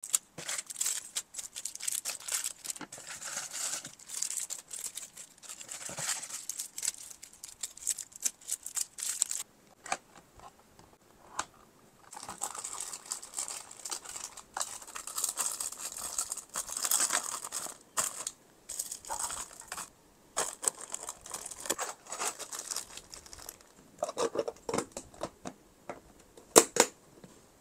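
Plastic packaging crinkling and rustling as items are handled, in irregular bursts with a short lull about ten seconds in. A couple of sharp clicks near the end are the loudest sounds.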